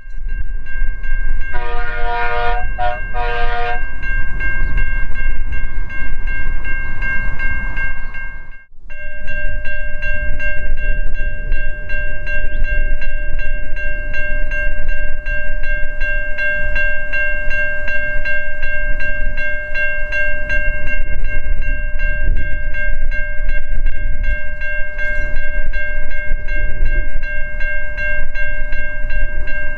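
A level crossing's warning bell rings steadily over a low rumble. A diesel locomotive horn sounds a few short blasts about two seconds in. The audio drops out briefly near the ninth second, then the crossing bell goes on ringing as the train approaches.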